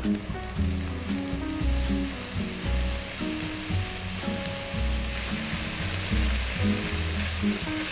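Ground beef sizzling as it hits a hot nonstick wok and is stirred with a spatula; the sizzle grows stronger from about a second and a half in. Background music with steady bass notes plays underneath.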